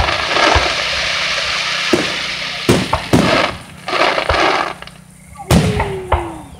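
Aerial firework shells bursting overhead: a long crackling hiss for the first two seconds, then sharp reports about two seconds in, twice close together near three seconds, and again about five and a half seconds in, with more hiss between them.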